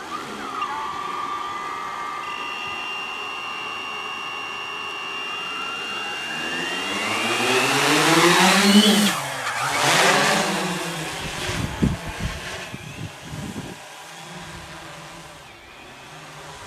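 MikroKopter multicopter's electric motors and propellers starting up and running with a steady whine. About eight seconds in the whine rises in pitch as the copter lifts off, then it drops. A few low thumps of wind hit the microphone before the copter settles into a fainter steady hum as it hovers high up.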